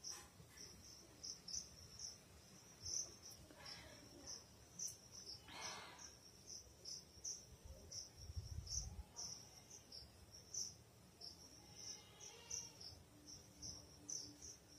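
Crickets chirping faintly in repeated high pulses, about one or two a second, with a brief hissing rush about six seconds in.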